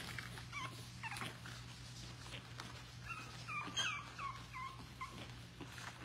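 Four-week-old puppies whimpering in short, high-pitched squeaks, a few about a second in and a cluster from about three to five seconds in, over a steady low hum.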